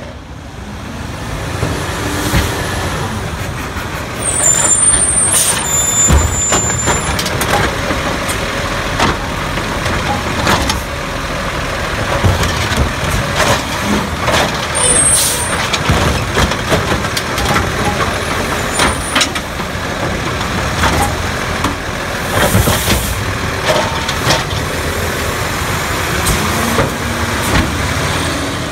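Scorpion automated side-loader garbage truck's diesel engine running as it pulls up to curbside carts, with brief high brake squeals and air-brake hisses twice. Scattered knocks and clanks come from the truck's cart-handling arm.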